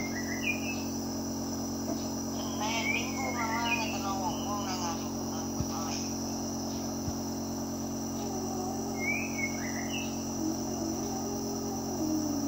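Home nebulizer's compressor running with a steady hum, driving the medicine mist that is breathed in through the mask.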